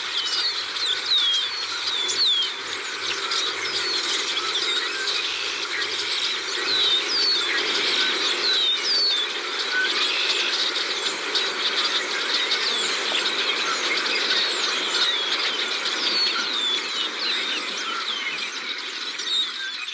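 A huge flock of blackbirds calling all together: a steady, dense din of countless overlapping high chirps and whistles.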